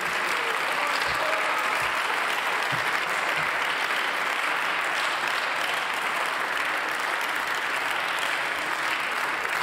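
Applause from members of a parliamentary chamber: many hands clapping in a steady, unbroken round.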